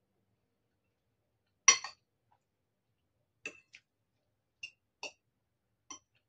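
Metal fork clinking against a ceramic bowl as noodles are twirled and scooped: about six short, light clinks, the loudest a little under two seconds in, the rest spread over the second half.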